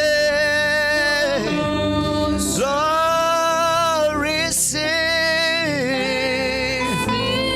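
Live gospel worship music: a singer holds long, drawn-out notes with no clear words, about three phrases, taking short breaths between them over a steady instrumental backing.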